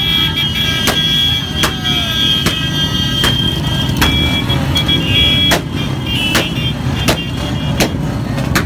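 Many Royal Enfield Bullet single-cylinder motorcycle engines running together in a dense, steady low rumble. Sharp knocks come at a regular beat a little over once a second, with high steady tones above.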